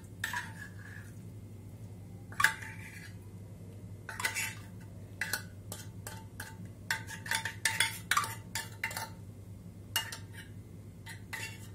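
Metal fork scraping and tapping inside an opened tin of tuna while digging the tuna out: a scattered series of short metallic clicks and scrapes, some with a brief ring.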